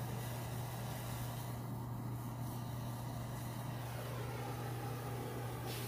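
Steady hiss of propane flowing from a propane melting furnace's burner over a constant low hum, with a butane torch lighter held to it to light it. A brief sharp noise comes near the end.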